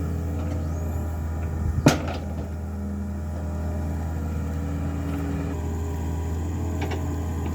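Excavator diesel engine running steadily. A single sharp knock sounds about two seconds in.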